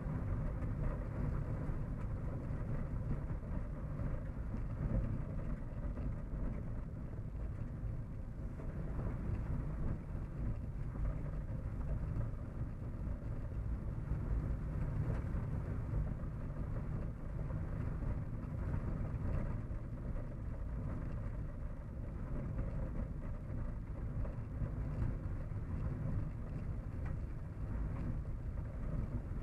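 Steady low rumble and road noise of a car driving, heard from inside the cabin.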